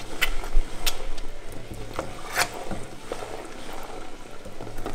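A wooden spoon stirring thick tomato sauce in a stainless steel pot, knocking sharply against the pot several times.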